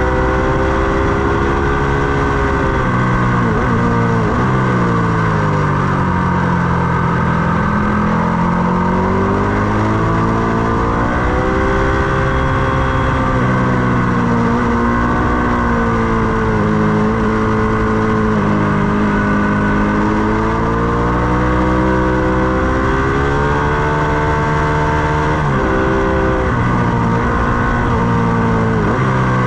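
Ducati Panigale 899's V-twin engine at track speed, revving up and down through the gears: the engine note climbs, then falls sharply several times (around 3–4 seconds in, near 25 seconds and at the very end) before climbing again. A steady rushing noise runs under it.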